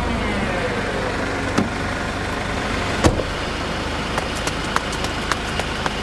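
Sound effect of a taxi ride through traffic: steady car engine and road noise, with a falling pitch in the first second and a couple of sharp clicks followed by a few lighter ticks.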